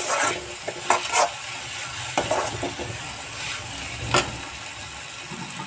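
Mixed vegetables sizzling in a kadhai over a gas flame while a steel spatula stirs them, scraping and knocking against the pan several times, with the sharpest knock about four seconds in.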